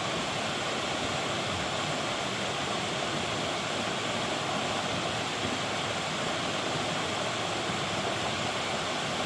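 Rushing water of a river and waterfall, a steady even rush with no let-up.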